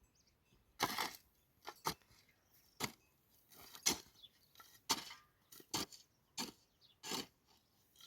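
A series of about ten sharp cracking knocks, unevenly spaced half a second to a second apart, like hand work on wood or stone.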